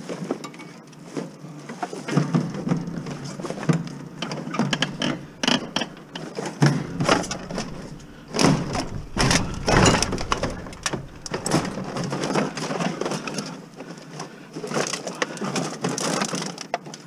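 Scrap being jammed into a tightly packed van: a large metal fan with a wire guard scraping, knocking and crunching against plastic containers and other junk in irregular clatters, loudest about halfway through.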